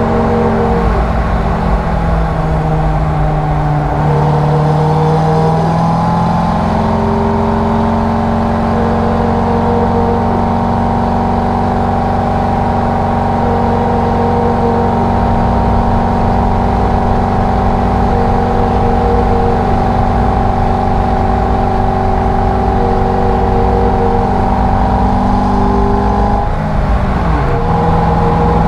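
Chevrolet Corvette C5 Z06's 5.7-litre LS6 V8 heard from inside the cabin, pulling up a mountain road. Engine pitch climbs over the first few seconds, holds steady for a long stretch, then briefly drops and comes back up near the end.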